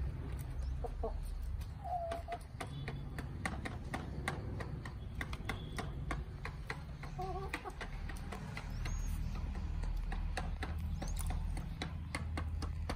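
Backyard chickens pecking around a plastic waterer: many short sharp taps, with a few soft clucks about 2 and 7 seconds in. A steady low rumble runs underneath.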